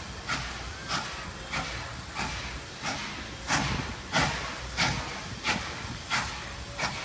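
Norfolk & Western steam locomotive working a passenger train, its exhaust chuffing at an even beat of about one and a half chuffs a second. The chuffs grow louder towards the middle.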